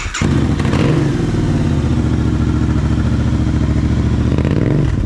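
Royal Enfield Interceptor 650's parallel-twin engine, through a TEC 2-into-1 exhaust, catching just after the starter and settling into a loud, steady idle, with a short rise in revs near the end. The engine has just been started and is still cold.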